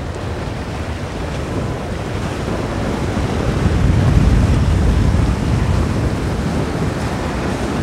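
Wind buffeting the microphone over the rush of surf and wake water as a VanDutch 40 motor yacht runs past at speed, with a low rumble that swells about halfway through; no clear engine note stands out.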